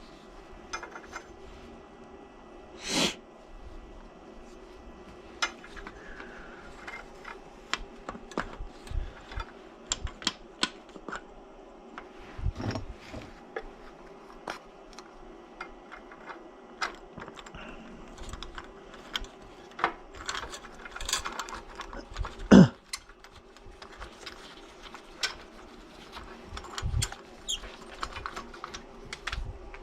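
Irregular clicks and taps of small parts and hand tools being handled, with two louder knocks, one about three seconds in and one about 22 seconds in, over a steady low hum.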